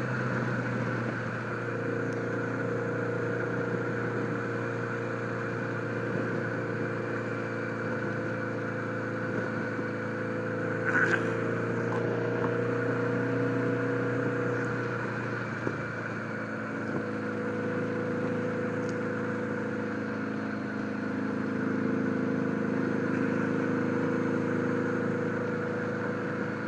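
1976 Honda Gold Wing's flat-four engine pulling under throttle through loud old mufflers, heard through a helmet mic, its pitch shifting a few times as the throttle is opened. The rider notices a flat spot around three-quarter throttle, which he puts down to the old carburettors.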